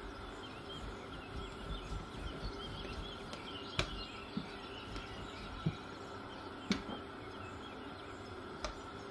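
A few light knocks from a steel rolling pin with plastic handles working dough on a silicone mat, scattered through the middle and end, over a faint steady background with light bird chirping.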